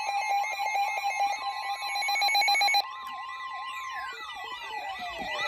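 Layered electronic siren and alarm tones: several pitches wail rapidly up and down over a fast pulsing alarm beep. The beep cuts off suddenly about three seconds in, and tones then slide downward while the wailing goes on.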